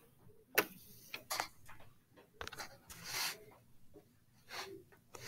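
A few sharp clicks and taps from someone working a computer's pen or mouse, with a couple of short breathy hisses near the end.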